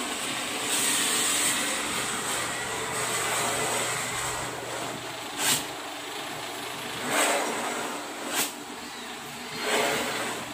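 Cutter blade scraping along a Formica laminate sheet against a metal straightedge, drawn back and forth to score the cut line with light pressure. The strokes come over a steady noisy hiss, with several short, sharp scratches in the second half.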